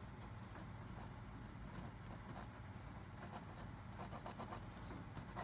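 Faint scratching of a Pilot Precise V5 RT pen's tip writing on grease-smeared paper, in short strokes that come quicker about four seconds in. The pen skips and writes poorly on the grease.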